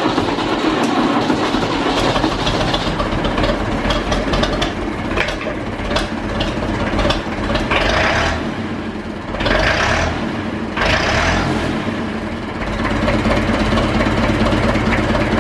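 McCormick International 434 tractor's four-cylinder engine running steadily at idle, freshly started and being run up after an oil and filter change to fill the new filter and check for leaks.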